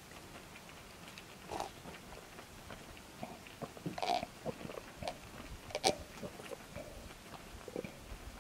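Person eating hot pot: quiet chewing and mouth sounds, with a few small clicks and knocks, the sharpest about six seconds in.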